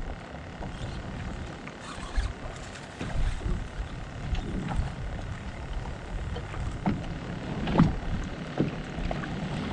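Wind rumbling on the microphone over water against the kayak hull, with a few knocks; the loudest comes about eight seconds in.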